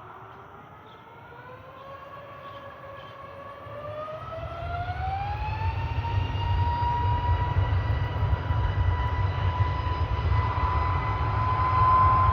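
Jet airliner's turbofan engines spooling up to take-off thrust: a whine rises in pitch over about six seconds and then holds steady, while a deep rumble builds and grows louder.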